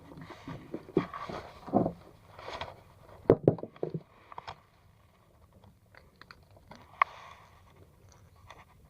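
Irregular knocks, clicks and scrapes of close-up handling, busiest in the first half, then quieter, with a single sharp click about seven seconds in.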